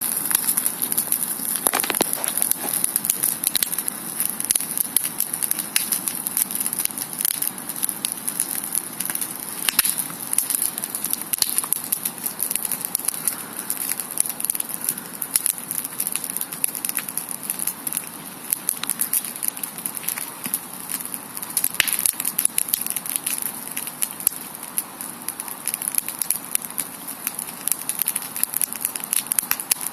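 Wood campfire burning and crackling, with irregular sharp pops and snaps over a steady high hiss.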